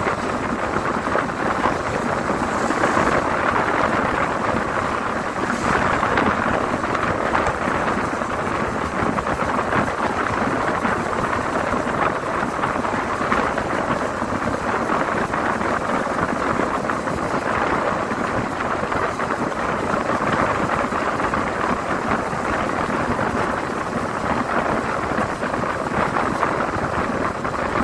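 Steady rush of wind and road noise from a moving vehicle, heard from inside at the window.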